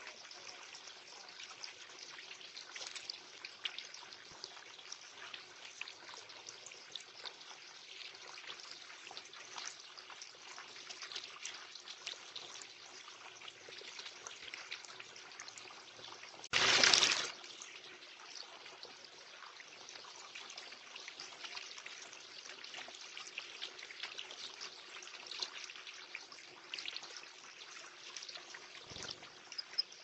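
Water feature trickling steadily, with the small splashes of a European goldfinch bathing in the shallow bird bath water. About 17 seconds in comes one loud rush of noise lasting about a second.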